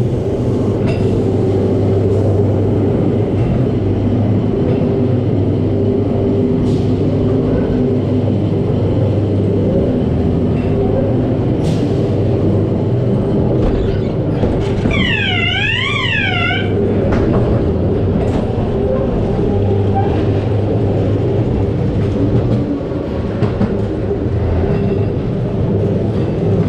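Dark-ride ghost train car running along its track with a loud, steady rumble, with a few sharp knocks along the way. About halfway through, a warbling wail from a scare effect rises and falls about three times.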